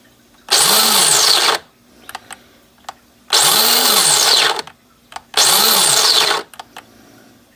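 Mr. Coffee coffee grinder's motor running in three short bursts of about a second each, spinning up and winding down every time with small clicks between. It cuts out on its own instead of grinding continuously, the fault that has it working only in short bursts.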